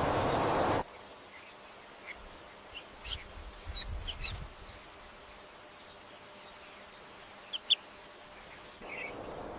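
A few short, faint bird chirps, scattered singly and in small clusters, over a quiet background. Under a second in, a steady rushing, wind-like noise cuts off suddenly.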